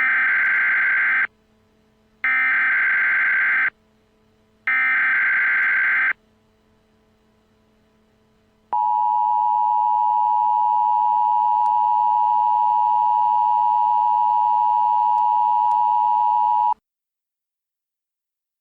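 Emergency Alert System tones: three short buzzing bursts of SAME header data about a second apart, then the steady two-tone EAS attention signal held for about eight seconds before it cuts off.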